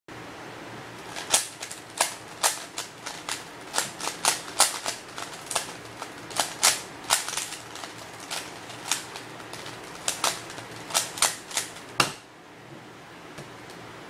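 Plastic 3x3 Rubik's cube being turned fast by hand: sharp, irregular clicks of the layers snapping round, in quick runs, stopping about twelve seconds in.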